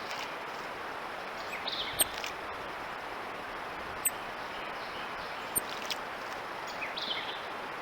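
Titmouse giving several short, high-pitched, electronic-sounding call notes, spaced a second or two apart, over a steady background hiss.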